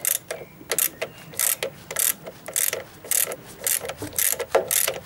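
Socket ratchet wrench clicking in short bursts, about twice a second, as its handle is swung back and forth to loosen the upper bolt of an auxiliary drive belt tensioner pulley.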